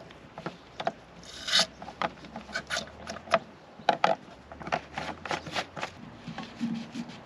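Irregular scrapes, rubs and knocks from the containers being handled as sheep dip is measured out and mixed into a drum of water: an old tin of dip and a 20-litre drum. A longer scrape comes about a second and a half in.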